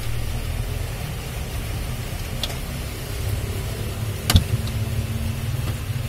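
Small screwdriver pushing at the catches of a refrigerator's plastic lamp cover: a faint click, then a sharp click a couple of seconds later, over a steady low hum.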